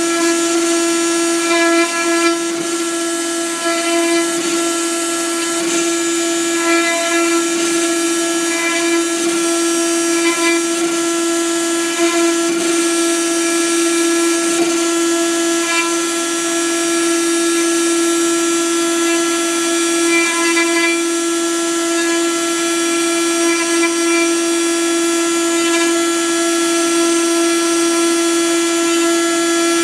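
CNC router spindle running at a steady high-pitched whine with a hiss as its bit engraves a pattern into a sheet, the tone flickering slightly as the bit cuts.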